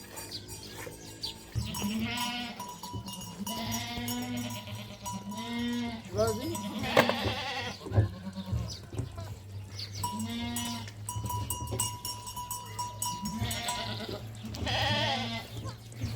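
A flock of sheep and goats bleating again and again, with animal bells ringing among them.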